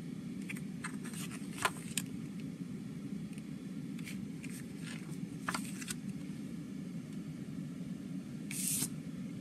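Pages of a CD booklet being handled and turned: scattered light paper rustles and clicks over the first six seconds, then a brief louder rustle near the end. A steady low hum runs underneath.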